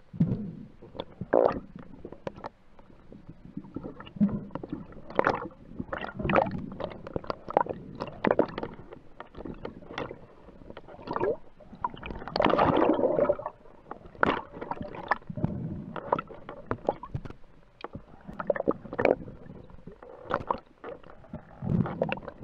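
Underwater water noise picked up through a camera housing: gurgling and sloshing with irregular knocks and taps as a diver swims and handles a speared sea bass. A longer rush of churning water comes a little past halfway.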